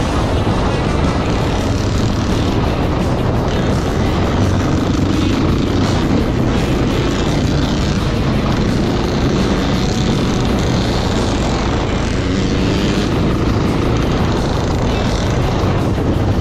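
Off-road motorcycle engine running steadily under way, mixed with wind rush.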